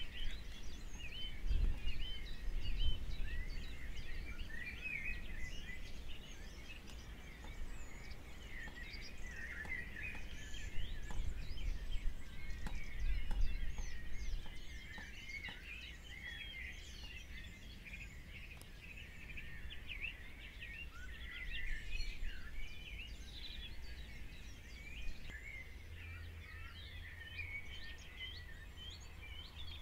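Many small birds chirping and twittering without a break, over a low background rumble that swells a few times.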